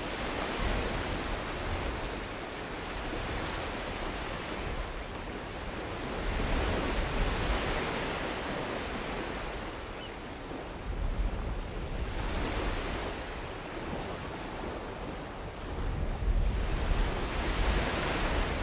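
Sea surf: waves swell and wash in four slow surges about five seconds apart, over a low rumble.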